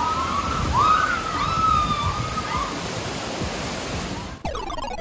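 Rushing, splashing water from water-park rides and pools, a steady loud noise, with several high-pitched gliding calls over it in the first half. The sound changes abruptly near the end.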